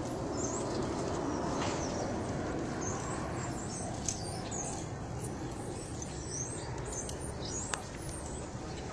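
Small birds chirping repeatedly over a steady outdoor background noise, with two sharp clicks, one about four seconds in and one near the end.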